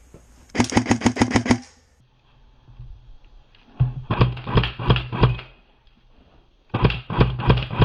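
Airsoft gun firing three short bursts of rapid shots, about nine a second, with pauses of a couple of seconds between bursts; the last burst is still going at the end.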